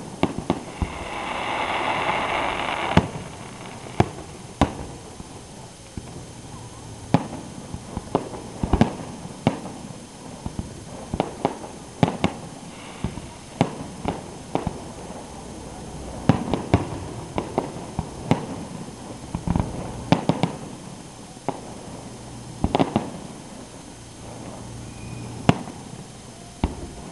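Aerial fireworks shells bursting in an irregular string of sharp bangs, dozens of them, some in quick clusters. About a second in, a loud hissing rush lasts a couple of seconds.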